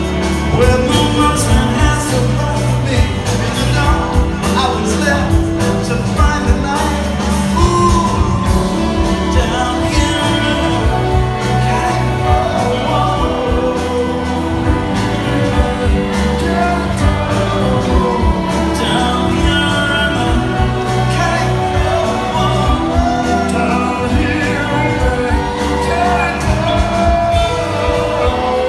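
A large live band playing a song, with drums keeping a steady beat under guitars and keyboards and a sung vocal, amplified through a concert hall's PA.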